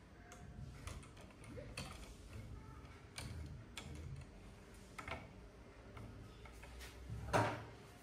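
Scattered light clicks and ticks of a hand working the metal Z-axis lead screw in its 3D-printed top bearing holder, with one louder click about seven seconds in.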